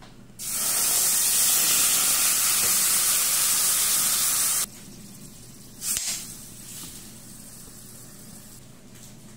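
Coconut milk squeezed from grated coconut sizzling loudly as it hits a hot stainless steel pan. The hiss stays steady for about four seconds and then cuts off suddenly. After that it is quieter, with one short noise about a second and a half later.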